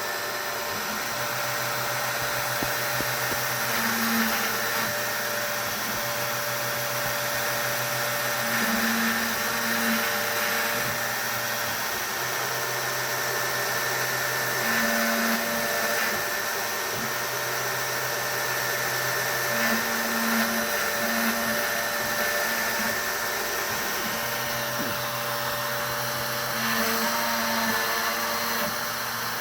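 CNC wood router spindle running steadily with a high whine while it carves a very shallow pass in wood. A lower hum from the machine's moving axes starts and stops every few seconds.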